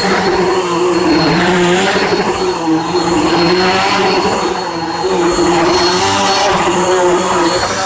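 Bissell Powerforce Helix upright vacuum cleaner running on a rug, a steady motor hum with a high whine, its pitch wavering up and down every second or so.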